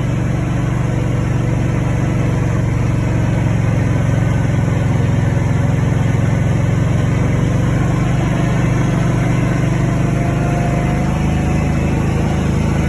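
Motor vehicle engine running steadily at an even pace while driving, a constant low hum.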